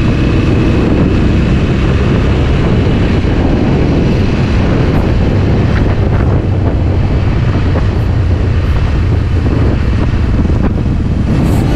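Wind rushing over the camera microphone on a motorcycle riding along at road speed, a steady loud rush with the motorcycle's engine running underneath.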